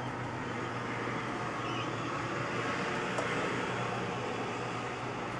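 Steady background noise: a constant low hum under an even hiss, with one faint click about three seconds in.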